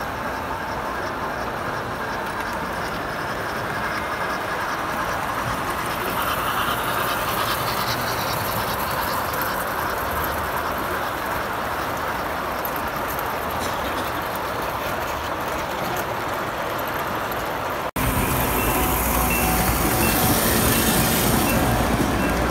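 Standard gauge tinplate model trains running on three-rail metal track: a steady rumble and rattle of wheels on the rails. After a cut near the end it gets louder and fuller, as a train passes close by.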